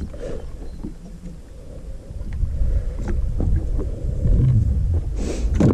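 Wind rumbling on the microphone, with scattered knocks and clicks of handling in an aluminium fishing boat, and a brief louder rush of noise near the end.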